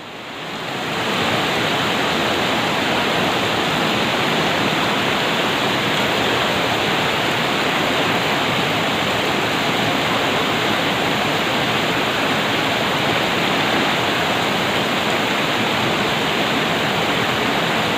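Steady rushing of fast-flowing river water, rising over about the first second and then holding even.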